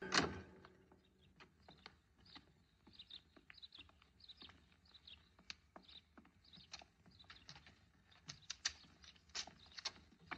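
A sharp knock right at the start, then faint, irregular clicks and taps. Short high chirps are mixed in about three to five seconds in.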